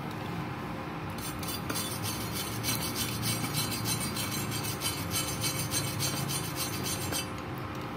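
Gasless flux-core MIG welding arc crackling, starting about a second in and cutting off abruptly near the end.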